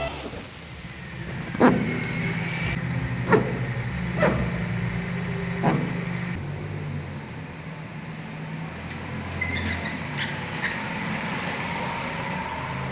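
Car running on the road, heard from inside the cabin as a steady low hum and rumble, with four sharp knocks or clicks in the first six seconds.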